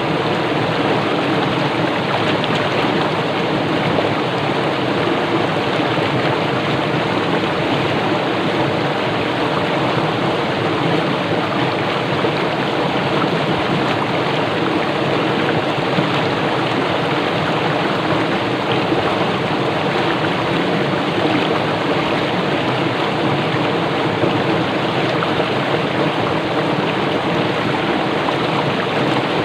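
Small stream flowing fast over rocks: a steady, even rush of water.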